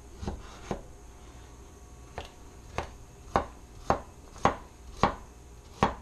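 Kitchen knife cutting through carrot onto a cutting board: about nine single chops, two near the start, then a steady run of roughly two a second that grows louder.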